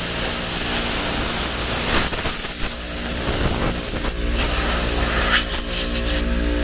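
Compressed air blasting from a blow-gun attachment to clear sand out of a car seat: a loud, steady hiss that dips briefly a few times, over a steady motor hum.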